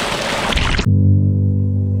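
Rushing river water for just under a second, then a sudden cut to background music of soft, sustained low chords.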